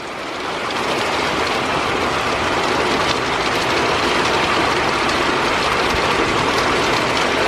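Heavy thunderstorm rain pouring down, building over about the first second and then holding as a loud, steady rush.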